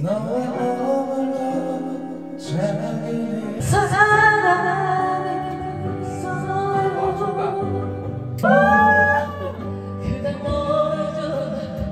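Karaoke singing into a microphone over an amplified backing track: a man's voice, then women's voices, with the song changing abruptly a few times.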